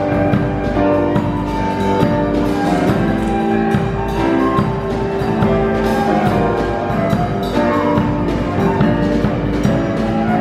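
A live band playing: sustained pitched notes over a steady drum beat.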